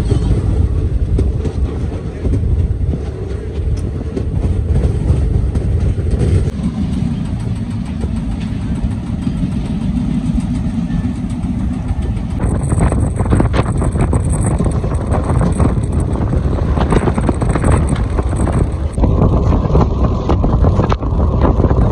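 Ananthapuri Express passenger train running at speed, heard from the coach's open doorway: a steady, loud rumble of wheels on rail and rushing air. From about halfway through, more clatter from the track comes in.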